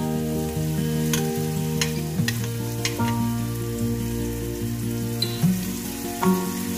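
Chopped ginger and garlic sizzling in hot oil in a stainless steel pot while a metal spoon stirs them, over background music with held notes.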